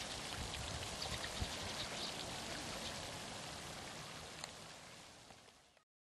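Steady splashing and trickling of water at a pond's edge, with small drips and clicks, fading out and then cutting off to silence near the end.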